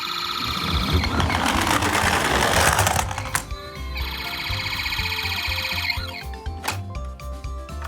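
Toy ambulance's electronic siren sounding in steady tones, with a rushing noise between about one and three seconds in, over background music with a beat.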